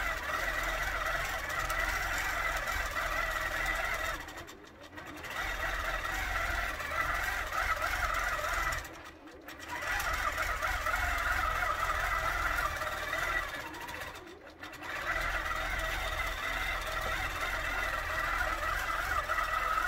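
Qnique 15 longarm quilting machine stitching steadily under computerized automation, a constant machine whir. The sound drops away briefly three times, roughly every five seconds.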